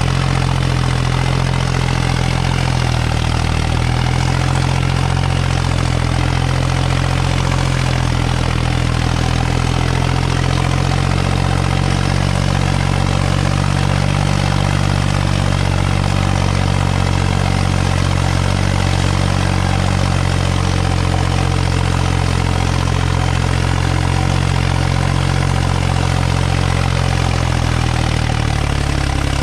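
Farmtrac tractor's diesel engine running steadily at one speed, with no change in pitch until a slight shift near the end.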